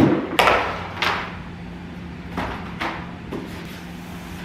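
A broom swept across a wooden floor in several short strokes, mixed with knocks of things being moved about.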